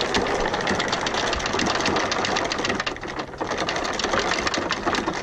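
Electric anchor windlass hauling in all-chain rode: the motor runs while the chain links clatter rapidly over the gypsy and bow roller. The anchor has just been pulled off the bottom and is coming up. The rattle eases briefly about three seconds in.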